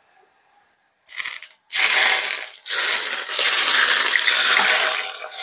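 Hot ghee poured from a frying pan onto cold yogurt sizzles loudly. It starts about a second in with a short splash, then settles into a steady hiss.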